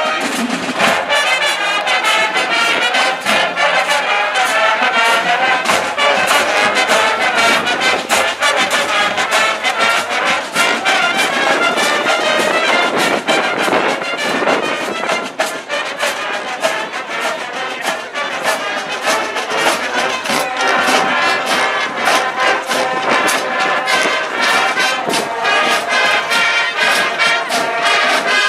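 Marching band playing, brass instruments carrying the tune over a steady percussive beat.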